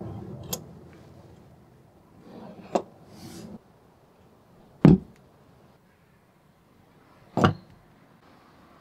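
Four sharp knocks, a couple of seconds apart, from a restored cast-iron bench vise being handled on a wooden bench, with some handling rustle around the first two. The heavier later knocks fit the vise body being set down on the bench, and the earlier ones fit its sliding T-bar handle striking its stops.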